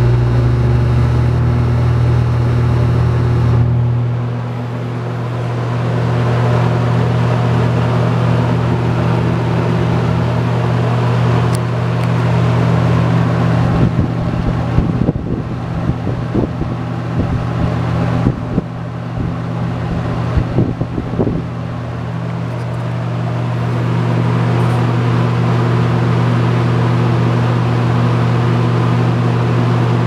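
Galaxy box fan running: a steady low electric-motor hum under the rush of air from its blades. Between about 14 and 21 seconds in, uneven gusts of the fan's airflow hit the microphone at the grille.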